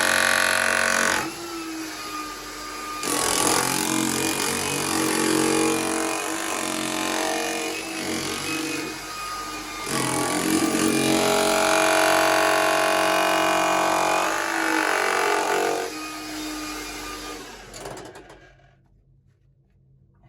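Hilti TE-700 AVR electric jackhammer breaking rock, running in long stretches with short pauses, then stopping near the end.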